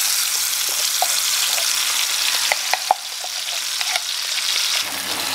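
Blended chili, shallot and garlic spice paste sizzling steadily as it is spooned into hot cooking oil in a frying pan, with a few short clicks of the spoon against the glass blender jar and pan.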